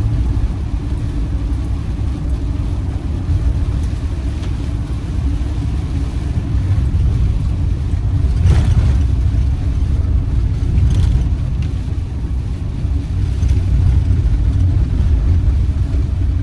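Steady engine drone and road noise inside a camper van's cab while driving on a wet road, with a couple of brief knocks about halfway through.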